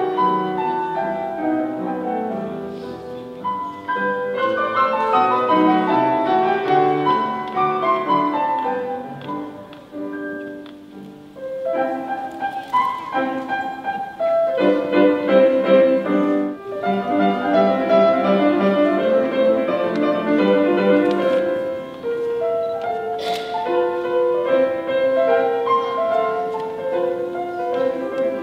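Steinway & Sons Model D-274 concert grand piano playing classical music. A four-hand passage thins out and stops about ten seconds in. After a short gap, a different solo piece starts on the same piano.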